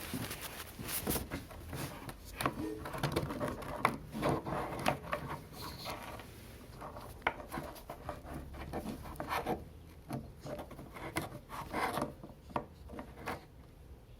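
Irregular rubbing, scraping and light knocks of things being handled by hand, with no steady machine tone.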